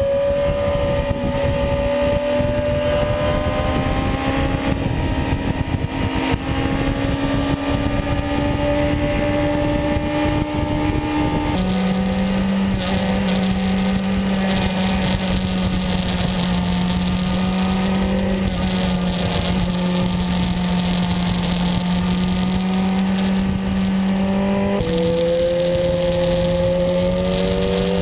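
BMW S 1000RR sport bike's inline-four engine running under way at speed. Its note climbs slowly, drops in pitch about a third of the way in as the rider shifts gear, holds steady, then changes again near the end.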